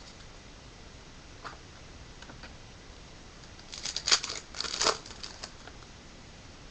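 Foil wrapper of a baseball-card pack being torn open and crinkled: a few faint ticks, then a loud burst of crackling rustle about four seconds in, lasting about a second.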